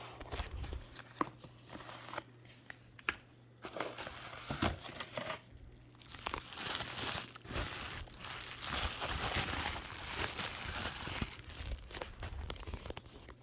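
Fishing-reel packaging being unwrapped by hand: rustling of the wrapping with scattered clicks and knocks of the box, coming and going, busiest in the second half.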